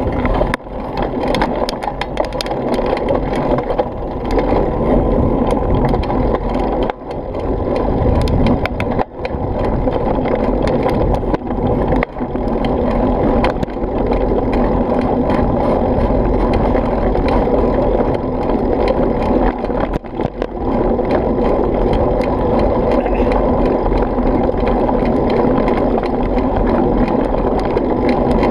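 Mountain bike rolling fast down a dirt trail: a steady rush of wind on the camera microphone and tyre noise, with rattling clicks over bumps in the first ten seconds or so.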